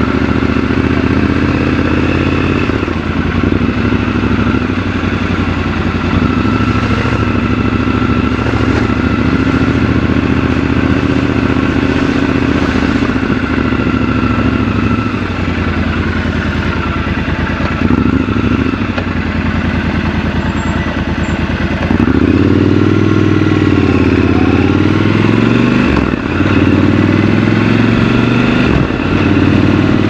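Triumph Scrambler 1200 XC's 1200 cc parallel-twin engine running at low revs while the bike rolls slowly. About 22 seconds in it gets louder and revs rise and fall as the bike pulls away, with a brief drop about four seconds later at a gear change.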